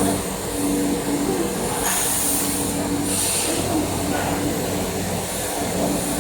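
Industrial bubble washing machine for vegetables running: a steady motor hum over churning water, with two brief hissing spurts about two and three seconds in.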